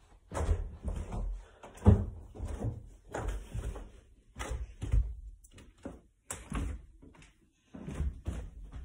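A run of irregular knocks and thumps, about two a second, the loudest about two seconds in, with a short lull near the end.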